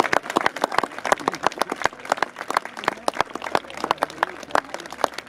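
A small crowd applauding: irregular, distinct handclaps, several a second.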